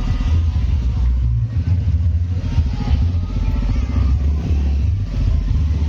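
Sound horeg mega sound system playing music, dominated by heavy, distorted bass notes that step between pitches.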